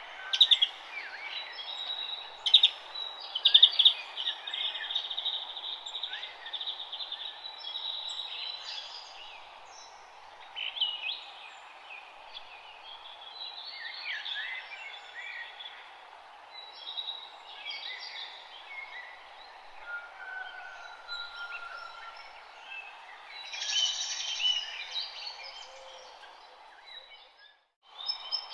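Many birds chirping and singing together, with overlapping calls, trills and whistles, over a steady background hiss. Near the end the sound cuts out briefly.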